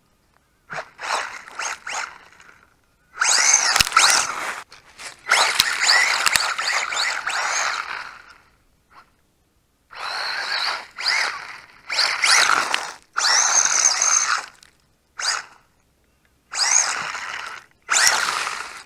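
Brushed 540 electric motor and drivetrain of a WLToys A959-B 4WD RC buggy whining as it is throttled up and down, in about eight separate bursts with abrupt silent gaps between them.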